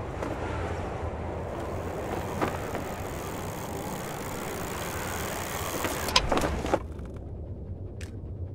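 Steady rushing wind, broken by a few sharp clicks and knocks about six seconds in. After that it drops to a quieter, duller low rumble.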